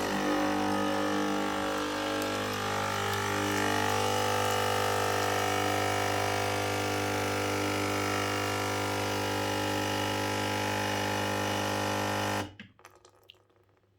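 Nespresso Creatista Plus pump buzzing steadily as it pushes descaling solution through the machine, with water hissing out of the outlets, loudest in the first few seconds. It cuts off suddenly about twelve seconds in.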